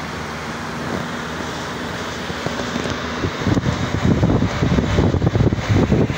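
Steady vehicle road noise. From about three seconds in, wind buffets the microphone in uneven gusts.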